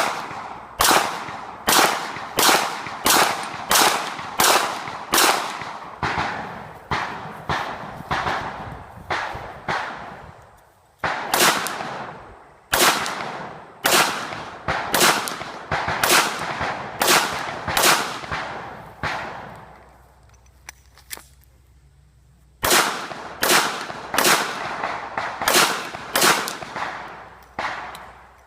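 Pistol shots fired in quick strings, about two a second, each sharp crack trailing off in a short echo. The firing breaks off briefly about ten seconds in and for about three seconds near the twenty-second mark, then resumes.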